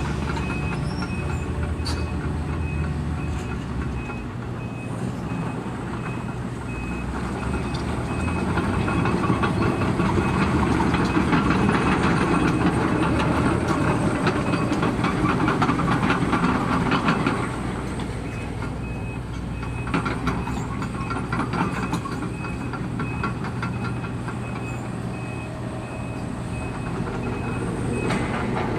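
Link-Belt 210 excavator's diesel engine running under load, with metal scraping and clanking as cylinder blocks and scrap metal are pushed and picked up. The machine works harder from about a third of the way in to just past the middle, and sharp metal knocks come later.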